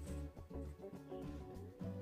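Quiet background music with sustained, changing notes.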